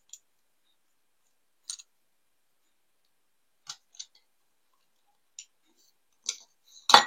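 Scattered small clicks and taps of a die-cast toy car's loose parts being handled, with the loudest, sharpest knock near the end.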